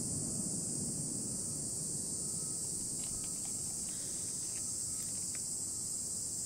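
Steady high-pitched drone of insects in summer foliage, with a low rumble of wind or distant noise underneath and a few faint ticks near the middle.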